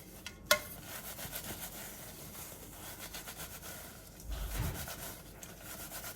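A metal pot being scrubbed by hand at the sink, a steady rubbing scrape, with a sharp ringing metallic clink about half a second in and a dull knock around four and a half seconds.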